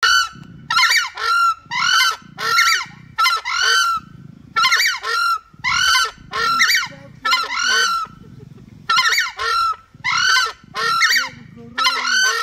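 Southern screamers (crested screamers, Chauna torquata) giving their territory call: loud, high-pitched screaming notes repeated in quick succession, in three bouts with short breaks.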